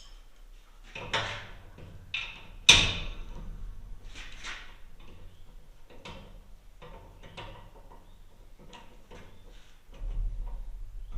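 Irregular metallic clanks, knocks and clicks from hand work on a Woodland Mills WC88 wood chipper's steel housing as its retaining screw is taken off to swing the cover open. The loudest clank comes about three seconds in.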